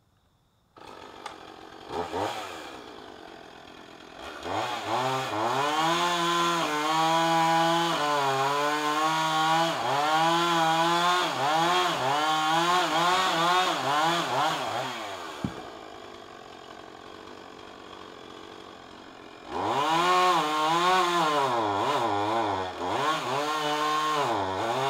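A two-stroke chainsaw starts about a second in and idles, then runs at full throttle cutting through a thick storm-broken limb, its pitch wavering as it bogs in the wood. It drops back to idle for a few seconds, then revs up and cuts again.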